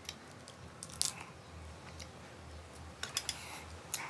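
Close-up chewing and mouth sounds of a person eating seafood by hand, with a few short sharp clicks and crunches, one about a second in and a cluster around three seconds in.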